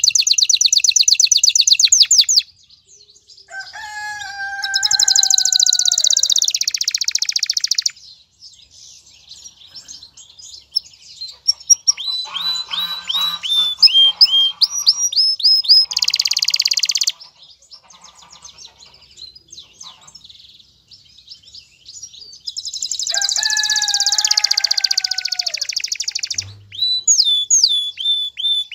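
Male domestic canary singing an excited breeding-season song: loud, very fast trills of repeated high notes alternate with runs of quick falling chirps. Twice, about 4 seconds in and again near 23 seconds, there is a lower, slowly falling whistled note, with quieter pauses between phrases.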